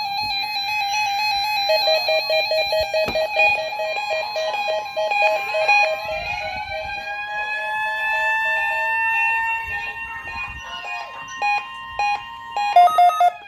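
Weekly test alert tones layered with other electronic alarms: steady alarm tones and fast-pulsing beeps, joined about six seconds in by a siren winding up to a held wail. Short loud beeps come near the end as the siren starts winding down.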